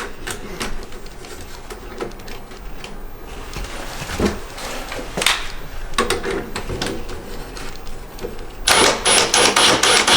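Clicking and rattling of a metal duct clamp being fitted around a foil exhaust-fan duct and tightened with a nut driver, with a louder burst of rapid clicking near the end.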